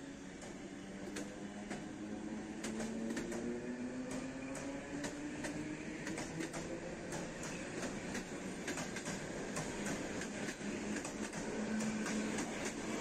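ER2 electric multiple unit pulling away and gathering speed: its traction motors whine, several tones climbing steadily in pitch, over frequent sharp clicks of wheels passing over the rails.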